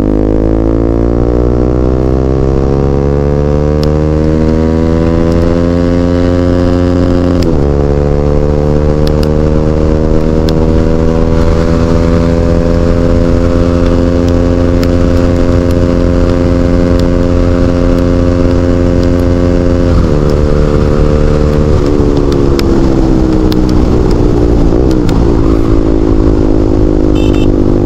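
Bajaj Pulsar NS200's single-cylinder engine running through a full-system Akrapovic exhaust with no dB killer, under way. The revs climb, drop sharply at a gear change about seven seconds in, climb slowly again, and drop again about twenty seconds in before settling to a steady note.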